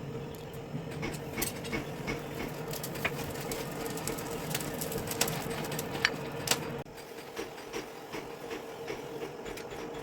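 A motor-driven workshop machine running steadily with a hum, with scattered clicks and taps over it; its low hum drops away suddenly about seven seconds in.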